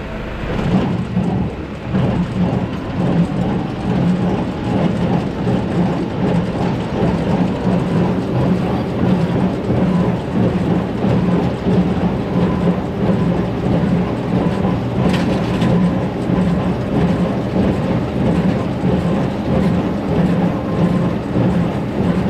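Tractor pulling a small square baler through hay: the engine runs steadily while the baler's plunger works in a steady, repeating rhythm.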